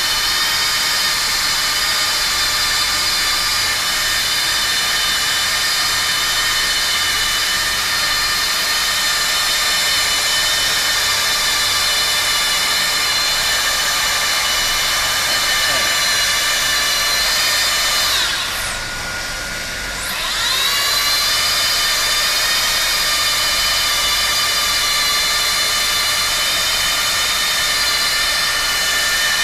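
An automatic plastic welding machine running with a steady, high-pitched whine made of several tones. About eighteen seconds in, the whine drops in pitch and quietens for a couple of seconds, then climbs back to its steady pitch.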